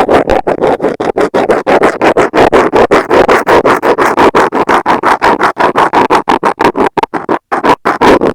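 Metal dental scaler scratching rapidly over an earphone microphone, quick strokes about five a second, close and loud through the mic, with a brief pause near the end.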